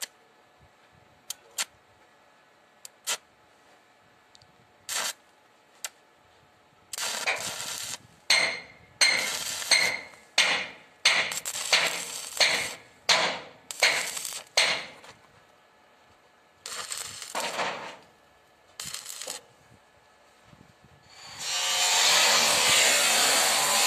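Stick (arc) welding on a steel implement frame: a few sharp snaps as the electrode strikes, then a run of short crackling bursts as the welds are laid in stitches. About three seconds before the end, a loud steady noise from another machine starts up.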